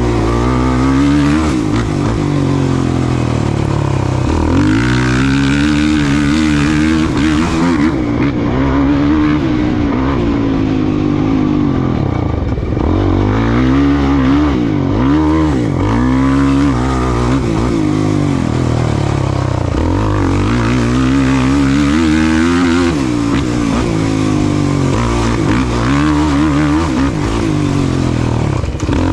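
Off-road race vehicle engine running hard under racing throttle. Its pitch climbs and drops again and again as the throttle opens and closes, with deeper drops about twelve and fifteen seconds in.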